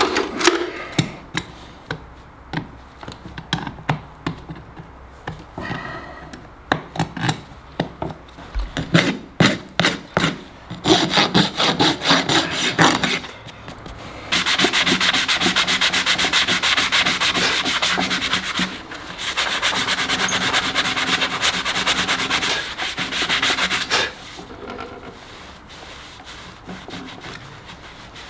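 A horse's hoof being filed down. First a run of short, sharp scraping strokes, then two long stretches of steady scraping about halfway through, stopping a few seconds before the end.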